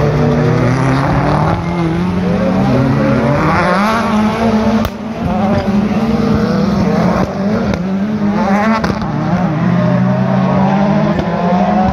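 Rallycross Supercars racing past, their turbocharged engines revving hard and rising and falling in pitch through gear changes, with a sharp crack about five seconds in.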